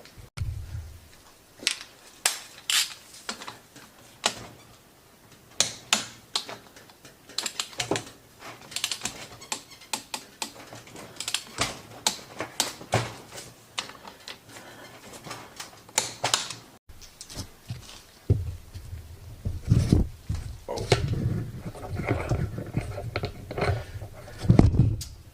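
Irregular sharp clicks and clinks of hand tools and metal engine parts being handled. Duller low knocks and handling noise join in for the last several seconds.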